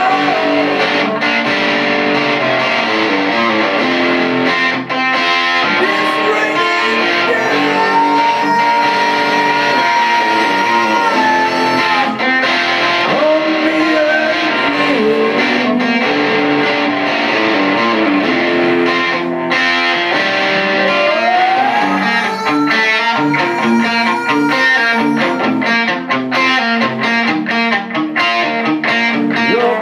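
A rock band playing an instrumental break: a distorted electric guitar plays long held lead notes that bend up in pitch and sustain, over the rest of the band.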